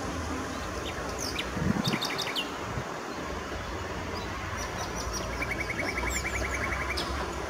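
Small birds chirping, with scattered short calls early on and a fast trill of about a dozen notes lasting roughly a second and a half, starting a little past the middle. A brief low thump about two seconds in is the loudest moment. A faint, steady low background hum runs underneath.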